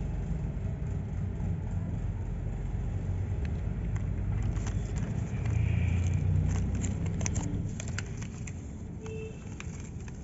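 A low, steady rumble that swells a little midway, with scattered light rustles and clicks as a paper leaflet and a plastic packaging tray are handled.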